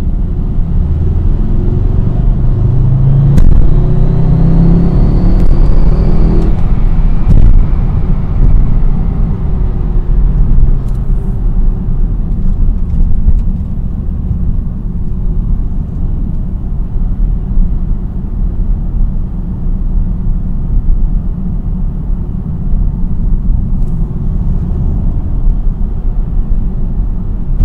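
Car engine and road rumble from inside the cabin while driving. The engine revs up over the first several seconds and then the throttle is let off, the condition in which the driver hears a rattle-chatter since a new DXD Stage 3 clutch was installed. He suspects it is the clutch hydraulic line knocking against the chassis leg.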